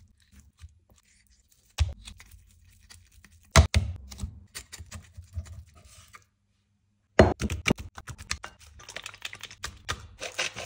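Knife cutting chicken thighs against a wooden cutting board: scattered sharp taps and knocks, one louder knock about three and a half seconds in, and a quick run of clicks about seven seconds in, followed by softer rustling.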